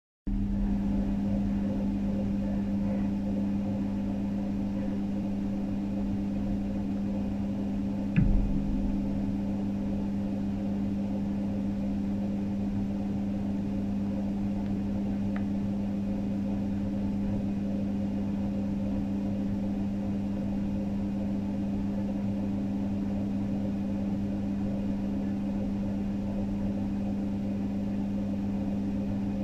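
Steady machine hum with a strong low tone, unchanging throughout, with a single knock about eight seconds in.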